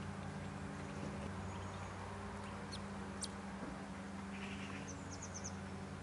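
A steady low hum, with a few short, high bird chirps over it: two about halfway through and a quick run of four or five near the end.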